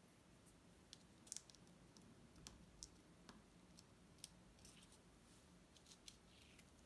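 Faint, scattered clicks and light scratches, about two a second, of fingertips and a pin picking at and peeling the backing film off an adhesive sand-art card.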